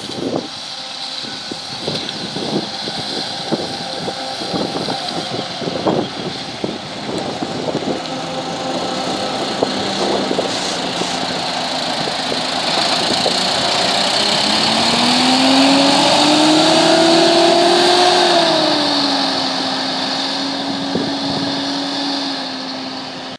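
City bus's diesel engine accelerating past at close range, its note climbing and then dropping and settling lower. Scattered knocks and clicks come in the first third.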